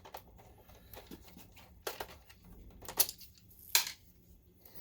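Hands working on a DLP projector's plastic housing: light handling clatter with three sharp clicks, about two, three and nearly four seconds in.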